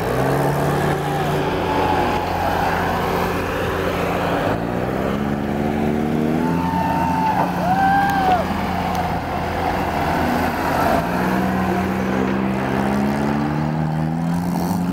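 Demolition derby compact cars' engines revving hard over a rough steady rumble, the pitch climbing and falling in two long pulls, the first about a third of the way in and the second in the last few seconds.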